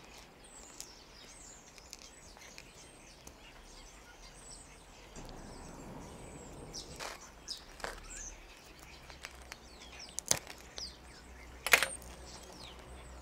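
Small birds chirping in the background while dry raffia rustles as it is unwound from a bonsai trunk, with two sharp snips of metal cutters a second and a half apart near the end.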